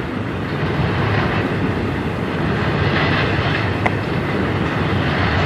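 Freight train cars rolling past on the track: a steady rumble of steel wheels on rail, with one short sharp click about four seconds in.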